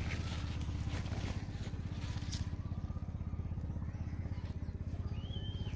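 A steady low engine hum with a fast, even pulse, running unchanged throughout. A couple of soft knocks come in the first few seconds, and a short bird chirp near the end.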